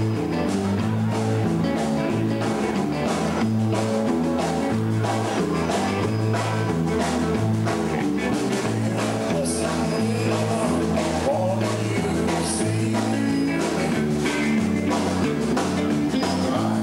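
Live rock-and-roll band playing: electric guitars over a repeating stepping bass line and a steady drum beat.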